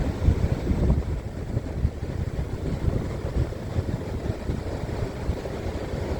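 Stormy wind buffeting the microphone in a low, gusty rumble, over the wash of ocean waves.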